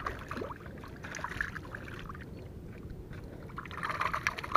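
Light splashing and sloshing of shallow pond water from a small fish thrashing at the net's edge, in two spells: about a second in and again near the end.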